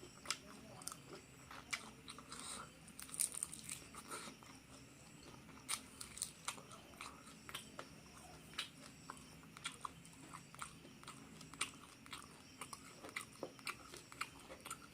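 Close-miked ASMR chewing and crunching of crispy fried duck with rice: many sharp, irregular crackles and crunches.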